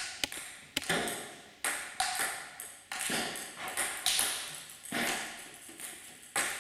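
Table tennis balls struck by paddles and bouncing on the tables, a quick irregular string of sharp ping-pong clicks, roughly one to three a second, echoing in a large hall.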